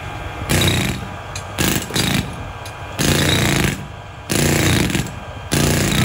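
Jackhammer running in five short bursts of about half a second to a second each, with brief pauses between them.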